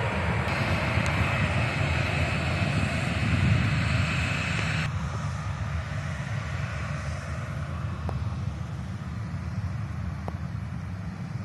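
Jet engines of a Boeing 737-700 running steadily, a rumble with a high whine. About five seconds in, the whine drops away abruptly and the engine sound turns quieter and duller.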